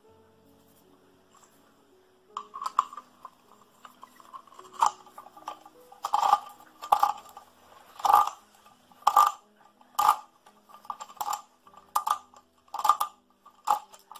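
Repeated short metallic clicks and rattles, roughly one a second, from the parts of a Comandante C40 hand coffee grinder being handled and fitted back together, starting about two seconds in.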